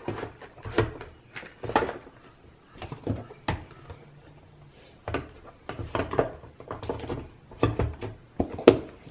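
Irregular knocks and scuffs of cardboard packaging being handled and set down on a desk, a few hollow thumps about a second apart.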